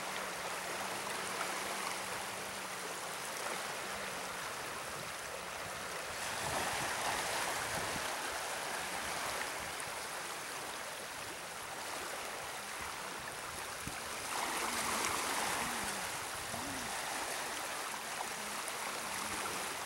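Canal water churning out below the gates of a concrete check structure: a steady flowing-water noise that swells a little twice, about a third of the way in and again past the two-thirds mark.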